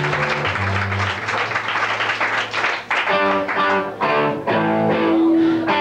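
Hardcore band playing live through a small club PA, heard on a home video tape. For about the first three seconds the full band is dense and loud with low bass notes. Then an electric guitar picks out separate ringing notes.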